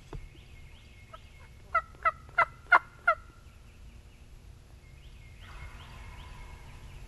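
A series of about five wild turkey yelps, about three a second, each note louder than the last. A fainter, drawn-out, rough turkey call follows a couple of seconds later.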